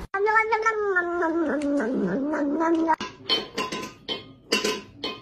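A cat's long yowl of about three seconds, gliding down in pitch and wavering, followed by a run of short, sharp knocks.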